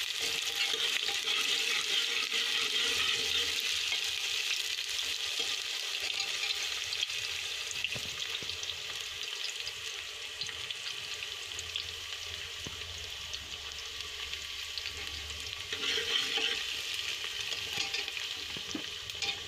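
Chopped onion and garlic sizzling in hot oil in an aluminium pressure cooker, stirred now and then with a steel ladle as they fry to a light brown. The sizzle eases a little midway and picks up again near the end.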